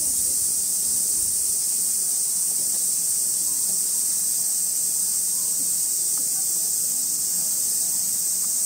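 A chorus of cicadas giving a steady, unbroken high hiss, with faint distant human voices underneath.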